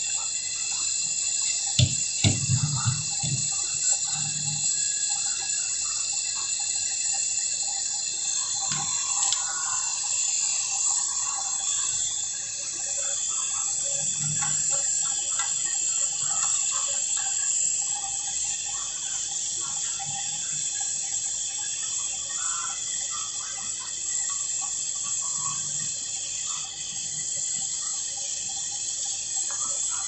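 Oxygen-fuel brazing torch flame hissing steadily as it heats copper pipe joints on a refrigerator compressor, with a few sharp knocks about two seconds in.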